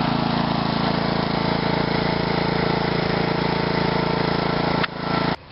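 Karcher pressure washer running steadily, a constant low mechanical hum, its sound dropping off abruptly near the end. The sticking pressure-relief piston is not yet freed, so the test gives no pressure at the wand.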